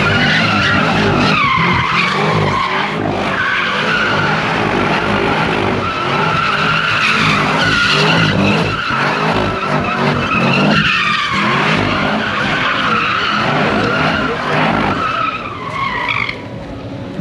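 Cars spinning donuts, their tires squealing in long, wavering screeches over running engines. The squeal dies away near the end.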